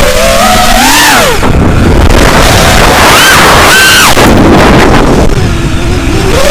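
Model airplane's motor and propeller whining, heard from the onboard camera, the pitch rising and falling several times as the throttle changes, over heavy wind rush on the microphone.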